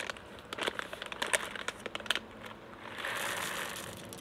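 Crinkly foil coffee bag rustling as whole coffee beans are poured from it into a stainless-steel hand grinder: a run of sharp crinkles and small clicks, then a steadier rustling hiss about three seconds in.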